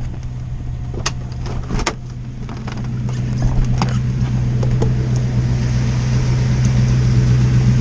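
Steady low hum of the motorhome's running engine, growing louder about three seconds in as the door opens to the outside. Two sharp clicks about one and two seconds in come from the door being unlatched.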